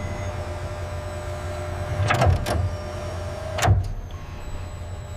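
Steady low machinery hum with a faint constant whine, broken by short sharp clanks about two seconds in and again near four seconds.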